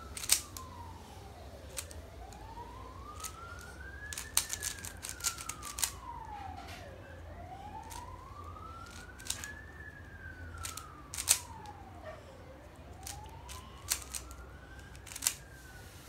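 Sharp clicks from the plastic layers of a 3x3 puzzle cube being turned during a solve, single clicks here and there and a quick run of turns a few seconds in. Underneath, a siren wails steadily, rising and falling slowly, one full rise and fall about every five and a half seconds.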